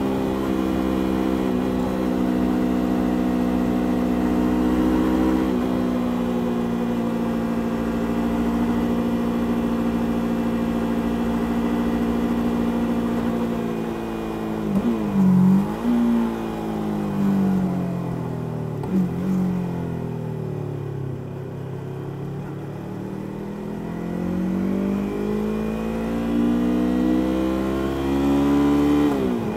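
Yamaha YZF-R3's parallel-twin engine through its stock exhaust, under way. It holds steady revs at first. About halfway through the revs dip with a few quick jumps and then sink as the bike slows. The revs then climb steadily under acceleration and fall off sharply at a gear change near the end.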